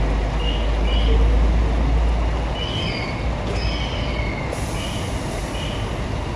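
Scania K440 coach's inline-six diesel engine running at low speed as the double-decker bus manoeuvres, a deep steady rumble. Short high-pitched squeaks come and go throughout.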